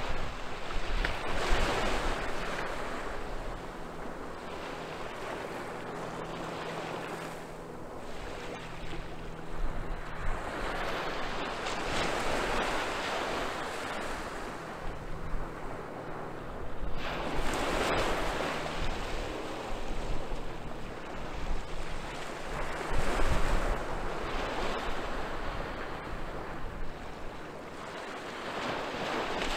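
Small waves breaking and washing up a sandy beach, the surf swelling and falling back every few seconds, with some wind rumble on the microphone.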